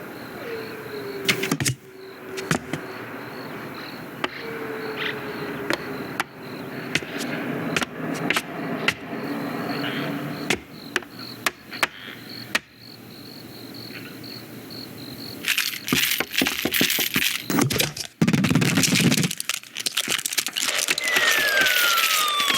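Animated-film sound effects: a string of sharp clicks, knocks and clatters over a faint, steady pulsing high tone, with a few short sliding tones. About fifteen seconds in it turns into a dense, loud clattering jumble.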